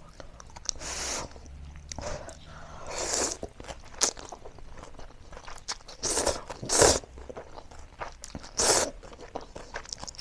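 A person slurping instant noodles and chewing, with several loud slurps a second or two apart between quieter chewing.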